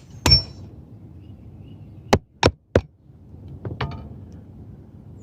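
Hammer striking metal while a crease is knocked into a gutter drop tube. There is one sharp strike, then three quick ones about a third of a second apart, then two lighter taps.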